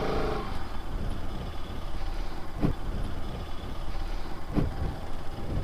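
Motorcycle engine running under way, a steady low rumble with road noise, broken by two short knocks in the second half.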